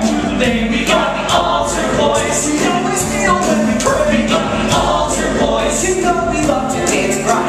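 A musical-theatre production number: a group of men singing together over band accompaniment with a steady beat.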